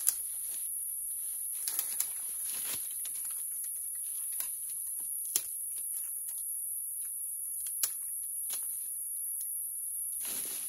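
Steady, very high-pitched insect chorus, with scattered sharp clicks and brief rustles of brush, the loudest click just after the start.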